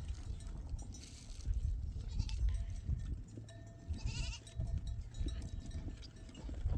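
Livestock bleating: one short, wavering bleat about four seconds in, over a steady low rumble.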